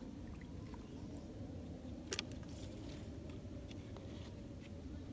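Faint steady outdoor background noise, with a few small ticks and one sharp click about two seconds in.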